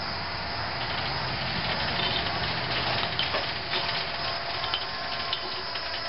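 Hand-cranked #40 roller chain running over sprockets and idler pulleys as the sawmill's log stops are raised and lowered, with scattered light clicks and rattles over a steady mechanical hum.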